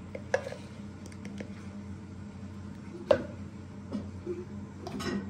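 A spoon and plastic ingredient jars being handled while measuring salt into flour: a few light clicks and knocks, the sharpest about three seconds in, over a steady low hum.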